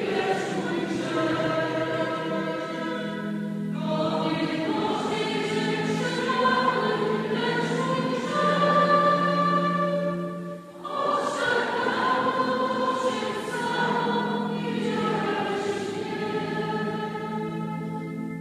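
Church congregation singing a hymn together in long held phrases, with short breaks about four and eleven seconds in; the singing stops at the very end.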